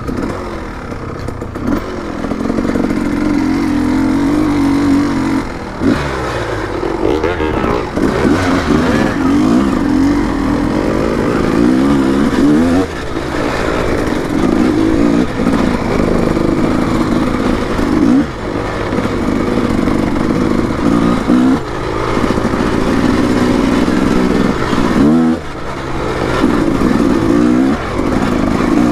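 Small dirt bike engine revving under way, its pitch climbing and then dropping off again every few seconds as the rider accelerates and lets off the throttle.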